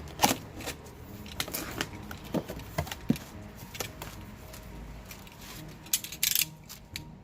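A cardboard box being opened and unpacked by hand: scattered crackles, rustles and small knocks of handled cardboard and packaging, with a louder rustle about six seconds in.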